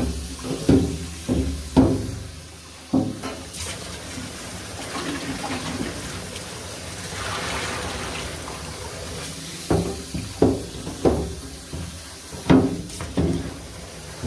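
Tap water running into a stainless steel sink while a large metal can of water is tipped and emptied into it, splashing. A cluster of short hollow thumps comes in the first few seconds and again near the end.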